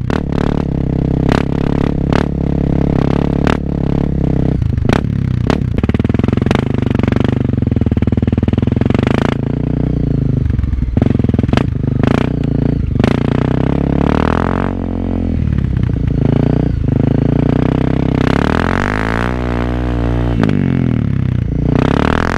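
Honda CRF250L's single-cylinder four-stroke engine through an FMF aftermarket exhaust, heard from the rider's seat while riding off-road. The engine runs steadily at low revs with frequent sharp knocks, and the revs rise and fall with the throttle in the latter part.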